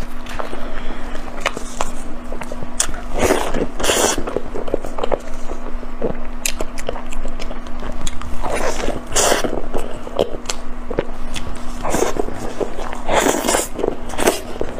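Close-miked eating: irregular bites and wet chewing of soft food, with a few louder mouth bursts and a steady low hum underneath.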